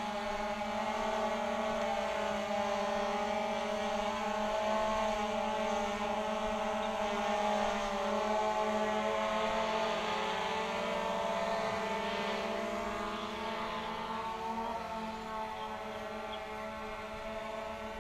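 DJI Phantom 2 Vision Plus quadcopter's four motors and propellers humming steadily in flight, the pitch wavering slightly about halfway through as the motor speeds change.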